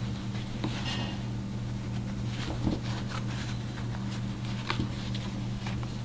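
Faint scattered clicks and rustles of hands fitting a metal zipper slider onto jeans' zipper teeth and handling the denim, over a steady low hum.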